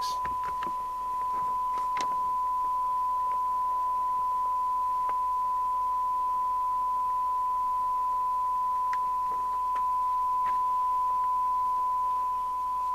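Steady 1 kHz test tone from an FM CB receiver's speaker: a signal generator's 1 kHz-modulated test signal being received and demodulated during squelch and sensitivity alignment, with a few faint clicks.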